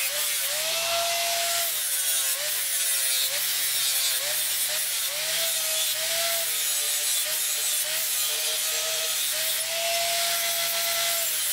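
Electric angle grinder grinding rust off a steel open-end spanner clamped in a vise. A steady hiss of abrasive on metal sits over the motor's whine, and the whine sags in pitch and recovers again and again as the disc is pressed on.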